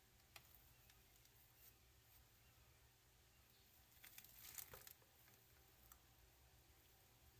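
Near silence with a low hum, broken by a few faint clicks and a brief burst of crackling rustle about four seconds in.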